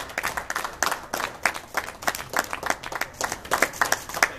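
Applause from a small audience: separate hand claps, several a second, thinning out near the end.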